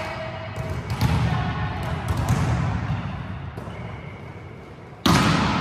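Volleyballs being hit and bouncing on a sports-hall floor: a series of irregular slaps and thuds with a murmur of voices behind them. About five seconds in, a louder burst of noise starts abruptly.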